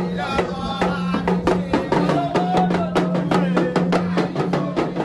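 Music with quick, even percussion strikes, about five a second, over a held low note, with a wavering melody line above.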